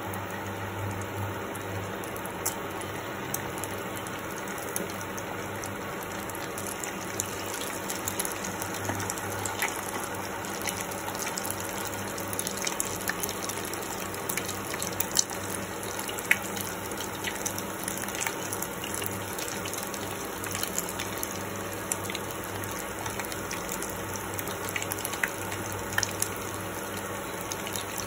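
Egg pakora batter deep-frying in hot refined oil: a steady sizzle dotted with frequent small pops and crackles as spoonfuls of batter are added.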